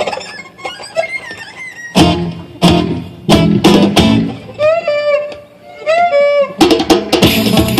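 Solo guitar playing: sharp plucked notes, then two swooping, bent notes about five and six seconds in, then fast, busy picking near the end.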